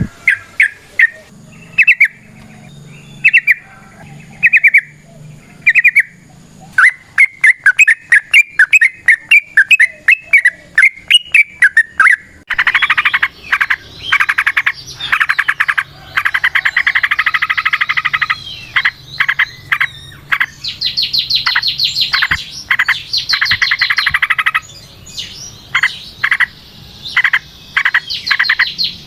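Yellow-vented bulbul (trucukan) singing in quick, repeated bubbly phrases. About twelve seconds in, the song turns into denser, louder chattering bursts.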